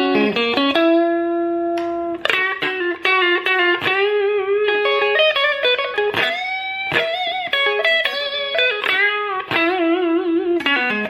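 Fender Custom Shop Master Built electric guitar played solo: a single-note lead line with quick runs and upward string bends, and a wide vibrato on the longer held notes.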